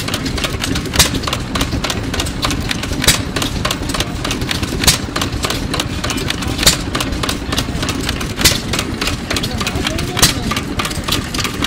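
1920s ARCO Type GH 2 hp hit-and-miss engine (Hercules Gas Engine Co.) running on its governor. It fires with a sharp bang about every two seconds, six times, and coasts between fires with steady clicking and a low rumble: it fires only when its speed drops and runs idle strokes with the exhaust valve held open in between.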